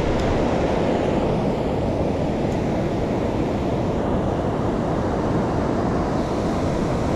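Steady rush of a fast-flowing river running over rocks, with wind buffeting the microphone.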